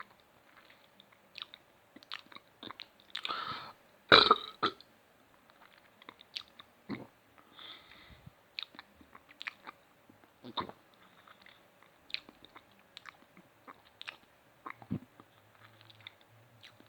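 A person swallowing air to force a burp without a drink: small mouth clicks and gulps throughout, with a breathy intake just after three seconds and one short, loud burp about four seconds in.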